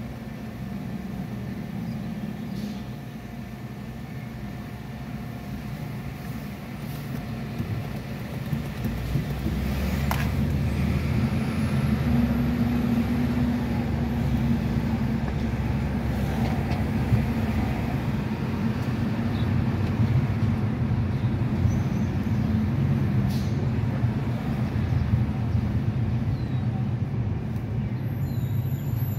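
Car's engine and road noise heard from inside the cabin. It is a low, steady hum while the car waits at a light, then grows louder from about nine seconds in as the car pulls away and drives along the street.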